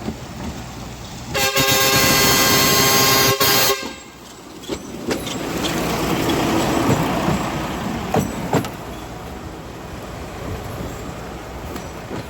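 Locomotive 87-0052's horn sounds one loud, steady blast of about two seconds and cuts off sharply. The train then runs past with a rising and fading rumble, punctuated by a few sharp clicks of wheels over the rails.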